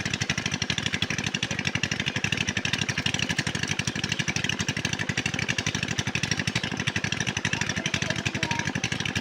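Boat engine running steadily, with a fast, even beat.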